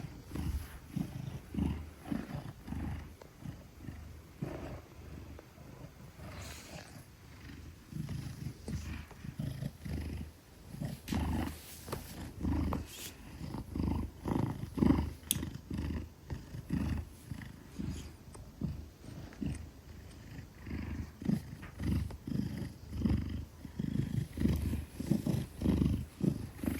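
Maine Coon cat purring, a low rumble pulsing a few times a second and swelling and fading with each breath.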